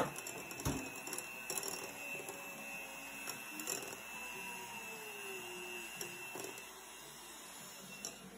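Electric hand mixer running steadily, a constant high motor whine as its beaters churn batter in a glass bowl, with a few short knocks.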